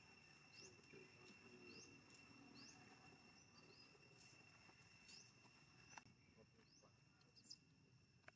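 Near silence: faint short rising chirps, repeating roughly once a second, over a steady high-pitched whine, with a few soft clicks near the end.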